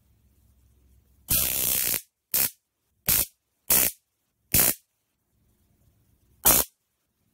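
High-voltage sparks arcing across the gap between the two blades of a homemade taser sword, fed by a 9-volt battery through a boost converter: one longer zap lasting most of a second, then five short snaps spaced out over the next five seconds.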